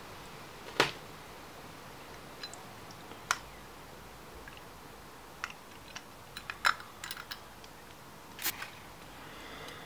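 Irregular metallic clicks and taps as a silver pair-cased pocket watch is handled, its hinged case and metal surfaces knocking under the fingers. There is one sharp click about a second in and a quick cluster of clicks a little past halfway.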